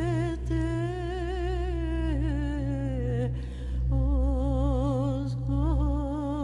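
Background music: a wordless voice humming long held notes with steady vibrato, stepping slowly downward, over a low steady drone.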